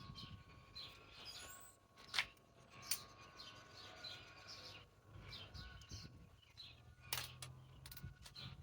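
Small birds chirping and calling, with a few sharp clicks and a faint low hum under them later on.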